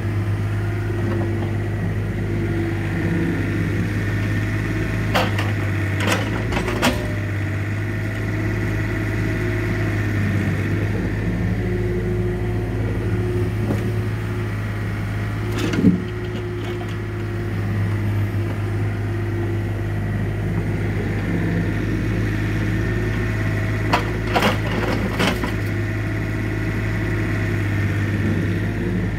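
Yanmar mini excavator's diesel engine running steadily under hydraulic work, with a thin steady whine over the drone. Sharp knocks of logs being gripped and moved come in a few clusters, the loudest about halfway through.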